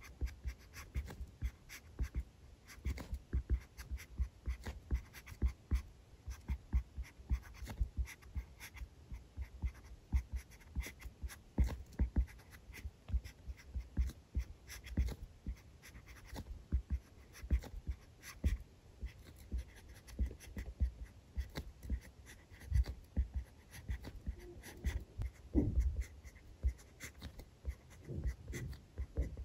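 Pen writing on paper in quick, irregular short strokes, with light knocks underneath.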